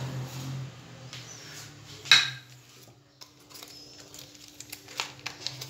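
One loud, ringing clink of metal kitchenware about two seconds in, followed by scattered light clicks and taps.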